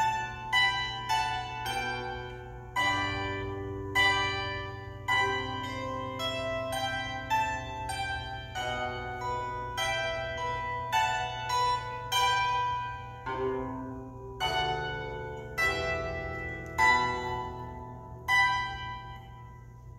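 Solo bandura being plucked: a slow melody of single notes and chords over lower bass notes, each note left to ring out. The loudest chords come near the end.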